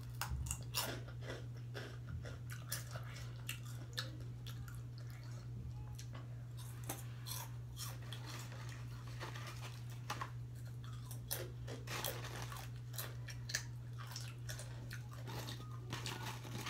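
Close-up chewing of crunchy spicy chips: irregular crisp crunches throughout, over a steady low hum.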